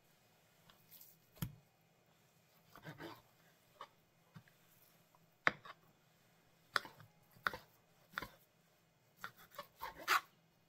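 A kitchen knife knocking and scraping against a cutting board in short, irregular strokes while fat is trimmed from a beef steak.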